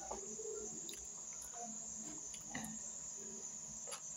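Crickets trilling steadily at a high pitch, with a few faint clicks of someone eating with their hands.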